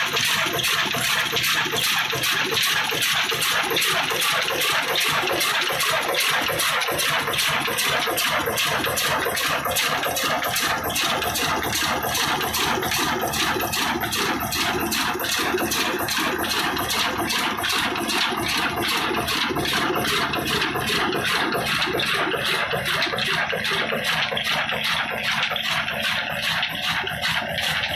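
Old 22 HP 'black' diesel engine running steadily while it drives a flour mill by a flat belt, its exhaust puffing in a rapid, even beat of about four pulses a second.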